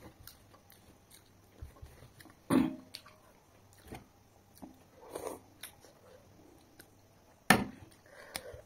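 Close-up eating sounds of someone eating by hand from a banana leaf: chewing and mouth smacks, with fingers picking at food on the leaf, scattered soft clicks, and two sharper knocks about two and a half and seven and a half seconds in.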